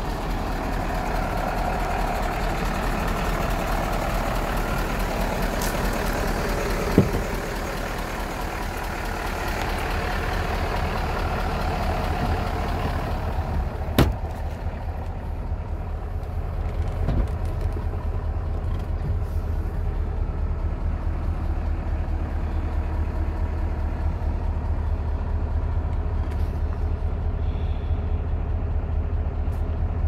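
Diesel engine of a Tata Novus concrete mixer truck idling steadily, with a low even hum. There is a sharp knock about seven seconds in and another about halfway through, after which the sound turns duller and loses its high end, heard from inside the cab.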